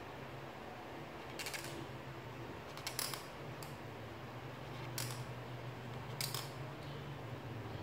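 Black marker pen scratching on paper in about five short strokes as it fills in a small shape, over a steady low hum.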